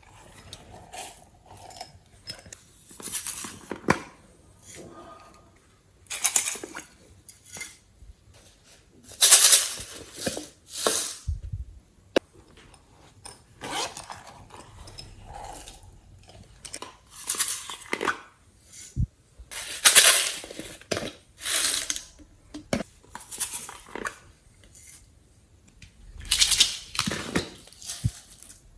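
Slime being worked and mixed by hand, giving irregular bursts of sticky squelching and sharp clicking pops.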